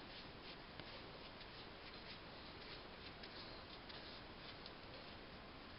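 Faint, gritty rustling and crackling of hands scooping and squeezing crumbly besan ladoo mixture in a pan, over a steady low hiss.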